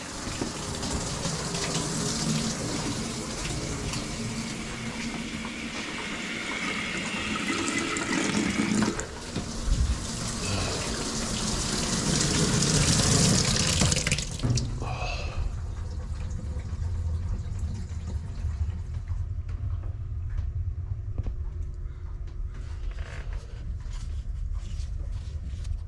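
Water rushing out of an open tap or valve as a steady hiss, cut off about fourteen seconds in. A low hum remains after it stops.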